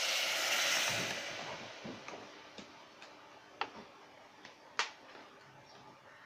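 Coconut milk sizzling as it is poured into the hot aluminium pot, fading out about a second in. After that come a few sharp, separate ticks, two of them about a second apart in the middle and the loudest of all near the end.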